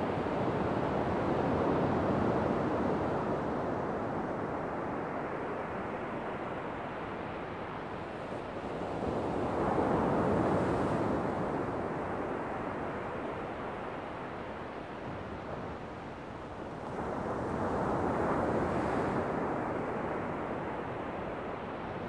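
Ocean waves breaking and washing up a sandy beach, the surf swelling and fading three times about eight seconds apart.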